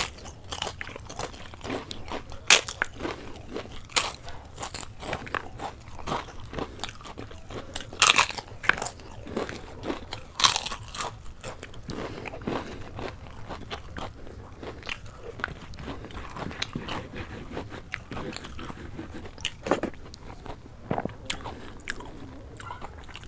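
Fried papad (papadum) being bitten and chewed close to the microphone: a run of sharp, crisp crunches. The loudest crunches come in the first half, and the chewing is quieter and sparser later on.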